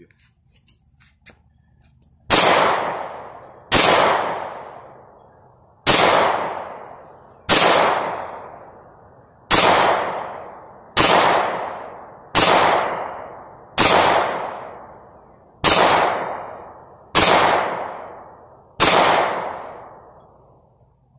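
Smith & Wesson M&P .40 S&W semi-automatic pistol firing eleven single shots at a slow, steady pace, about one and a half seconds apart, starting about two seconds in. Each report dies away over a second or so.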